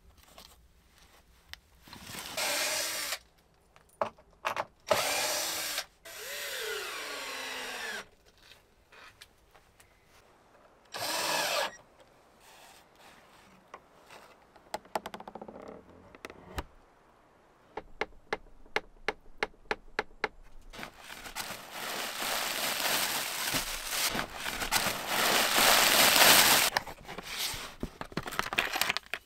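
Cordless drill-driver run in several short bursts, driving screws; one run drops in pitch as it slows. Later comes a run of clicks, then a long stretch of loud scraping and rustling in the last third.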